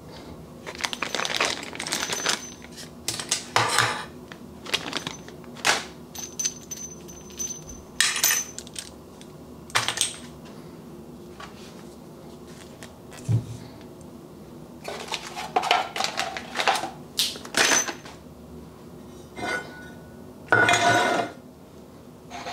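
Radio gear and parts being set down one after another on a steel machine table: a series of separate clinks, knocks and rattles of hard objects against the metal top, some with a brief metallic ring. The loudest stretch comes near the end.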